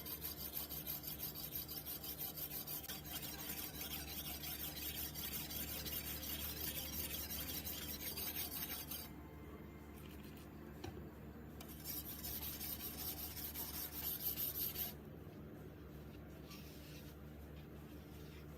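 Steel knife blade being drawn across a wet whetstone in quick, repeated rasping strokes. The strokes are fainter from about halfway on, with two short bouts of sharpening near the end.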